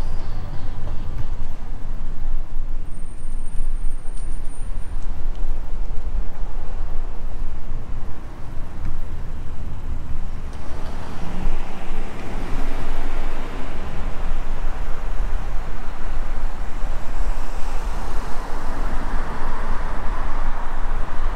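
Steady wind rumble buffeting the camera microphone during a bicycle ride, with a broad rushing road noise that swells about halfway through and stays loud.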